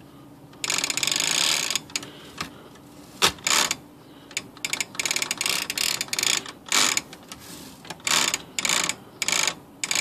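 Smith Corona typewriter's power spacer and escapement mechanism rattling with rapid clicking in repeated bursts as its linkage is worked by hand: a longer burst early, then many short ones in the second half. The repair has not cured the fault yet, and a part of the mechanism still hangs low.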